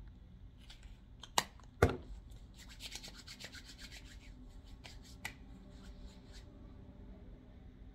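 Hands rubbing body cream into the palms and fingers, a soft skin-on-skin swishing that runs for a few seconds. Before it, about a second and a half and two seconds in, come two sharp clicks, which are the loudest sounds.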